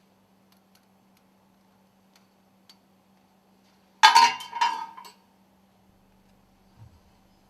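Metal stuffing-box ring segments clinking against each other as they are handled. There are two sharp clinks about half a second apart, each ringing briefly, and a faint low knock follows near the end.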